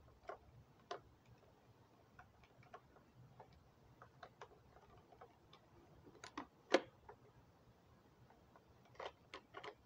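Scattered small clicks and light knocks of a Henry AR-7 .22 survival rifle being taken apart by hand, with its receiver being undone from the stock. The loudest click comes about two-thirds of the way through, and a quick run of clicks comes near the end.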